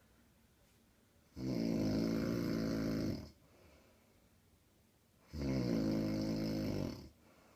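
A woman snoring loudly: two long, low snores, each lasting nearly two seconds and about four seconds apart, with quiet gaps between them.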